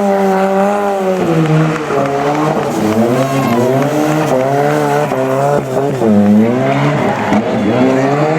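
Historic rally car's engine revving hard: it holds high revs, drops about a second in, then rises and falls again and again as the throttle is worked through a drift or burnout.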